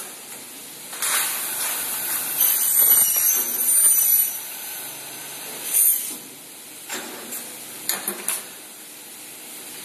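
Twin-head miter saw blades cutting aluminium frame profiles: a high-pitched screeching hiss for about three seconds, then a shorter cut near the middle. A few sharp metal clacks follow later.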